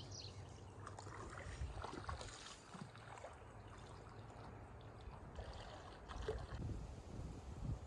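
Faint creek water running and splashing irregularly over a low rumble.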